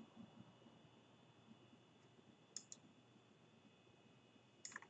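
Near silence broken by a few faint computer clicks: a quick pair about two and a half seconds in and a short cluster near the end.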